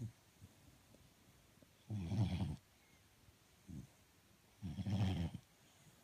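Sleeping dog snoring: low, buzzing snores about every three seconds, one about two seconds in and another near five seconds, with a short, weaker one between them.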